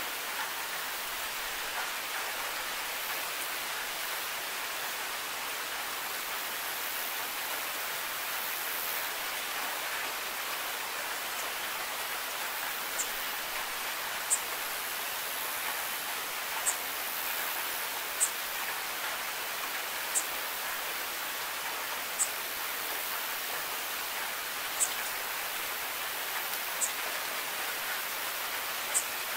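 Steady rain falling, an even hiss. From about halfway in, short sharp ticks come about every two seconds.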